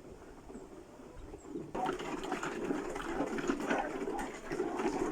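A flock of farm birds calling together, a dense busy chatter that starts abruptly about a second and a half in and keeps on, over a faint low background before it.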